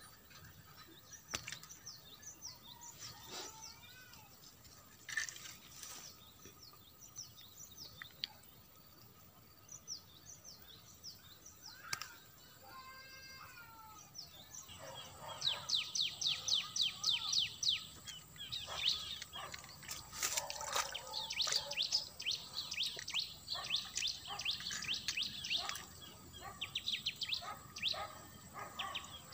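Small birds chirping with many quick, high downward-sweeping notes. About halfway through a rapid, louder run of chirps begins and carries on in bursts.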